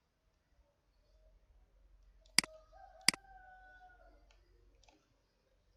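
Two sharp computer mouse clicks, about two and a half and three seconds in, as menu items are selected, followed by a few fainter ticks. A faint, slightly falling tone sounds in the background just after the clicks.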